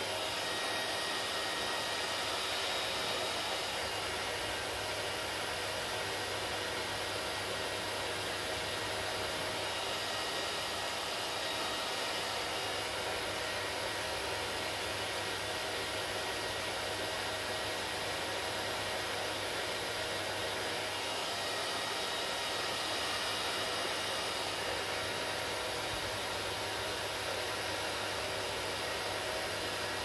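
Handheld hair dryer running steadily, blowing air onto hair, an even rush of air with a few faint steady tones in it.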